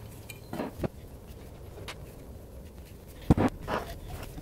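Handling noise from a fuel pump hanger being worked on at a wooden workbench: scattered light clicks and knocks of its plastic and metal parts, with one sharp knock a little over three seconds in, the loudest.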